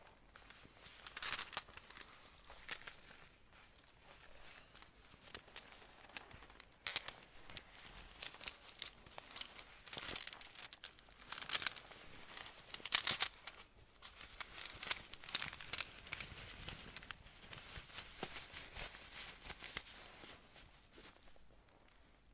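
Close-miked hand-handling sounds: irregular crinkling and crackling with scattered sharper clicks and taps.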